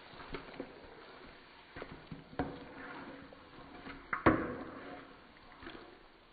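Spatula scraping and knocking against a non-stick wok while tossing sauce-coated chicken wings, a series of light scrapes and taps with a sharper knock about four seconds in.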